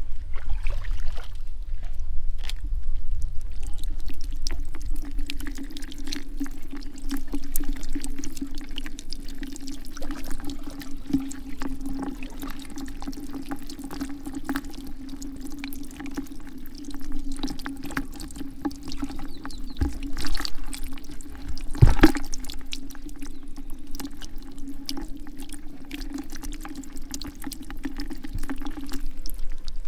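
Water pouring and trickling steadily, with many small clicks and knocks and one sharper knock about two-thirds of the way through.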